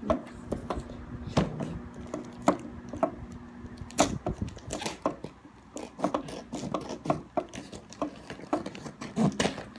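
Hands handling and opening a parcel: a string of irregular clicks, taps and small rustles of packaging, with a low steady hum through the first four seconds or so.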